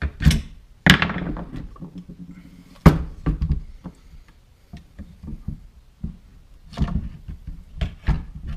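Knocks, clunks and small clicks of a Saiga rifle being worked on with a screwdriver and shifted on a wooden workbench while its buttstock is taken off. The two sharpest knocks come about one and three seconds in, with lighter taps between and a cluster near the end.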